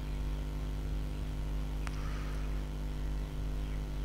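Steady low electrical hum with a stack of even overtones, the background noise of the recording setup, with a single sharp click about two seconds in.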